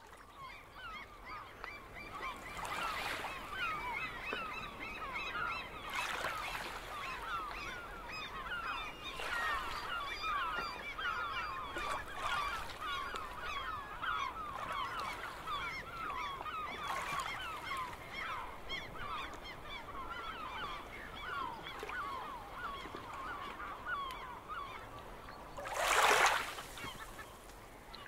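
A flock of birds calling, a dense chorus of short overlapping squawks and chirps. Soft rushing swells of noise come through every few seconds, and a louder one comes near the end.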